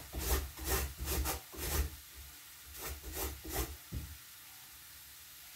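Rhythmic scraping strokes of a kitchen utensil against a cutting board, two to three a second, stopping about four seconds in.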